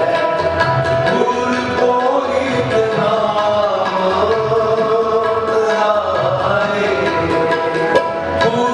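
Two Nagi harmoniums playing a Sikh kirtan melody over a steady tabla rhythm.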